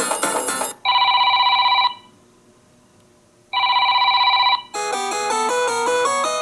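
Samsung Galaxy S21 built-in ringtones playing in turn: the end of one musical ringtone, then a ringtone like an old telephone bell, two trilling rings about a second each with a pause between. A new melodic ringtone of quick notes starts near the end.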